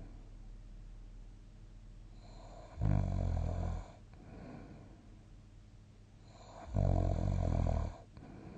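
A sleeping person snoring: two loud, rattling snores about four seconds apart, each lasting about a second, with quieter sleep breathing between them.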